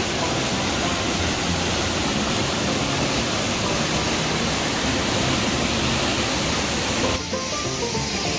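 Waterfall pouring steadily, a dense rushing noise of falling water, with background music under it. The water sound changes abruptly and dips briefly a little after seven seconds in.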